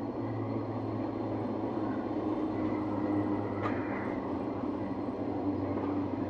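Diesel locomotive running, heard from inside its cab: a steady engine hum mixed with the rumble of the wheels on the rails, with one short sharp click a little over halfway through.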